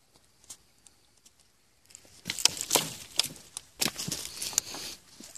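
Dry, dead brush and twigs crackling and snapping as they are pushed through, with rustling; faint scattered ticks at first, then from about two seconds in a dense run of sharp cracks.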